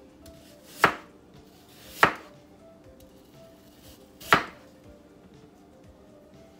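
A large chef's knife chopping through an apple onto a wooden cutting board: three sharp chops, about a second in, at two seconds and just after four seconds.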